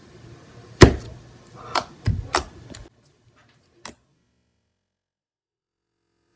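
Slime being slapped and dropped onto a countertop: a handful of sharp, wet smacks, the loudest about a second in, with three or four more over the next few seconds.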